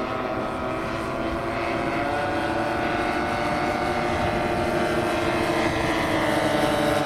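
Propeller engines of several large-scale radio-controlled WW2 model aircraft flying in formation, droning together at slightly different pitches. The sound grows louder and shifts in pitch near the end as the models pass low.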